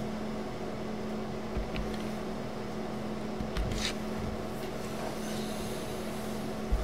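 Steady low machine hum in a room, with a few faint clicks and a brief soft hiss a little under four seconds in.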